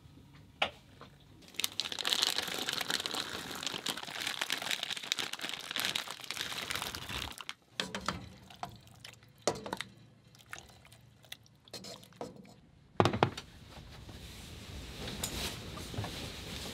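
Galley cooking sounds: a steady hiss for several seconds, then a spoon stirring and clinking in a steel pot of tomato sauce, with one loud knock. Near the end a steady outdoor hiss takes over.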